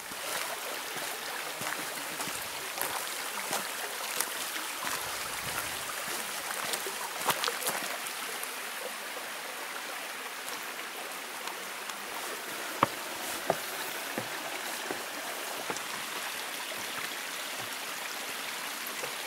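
Mountain stream running steadily, with scattered clicks and two sharper knocks near the two-thirds mark.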